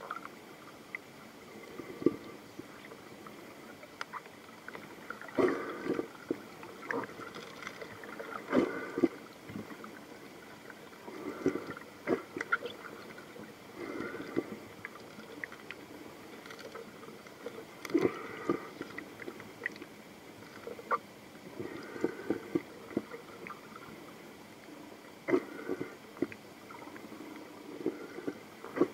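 Muffled underwater sound through a submerged camera: a faint steady hiss with irregular clusters of short clicks, knocks and gurgles every second or two.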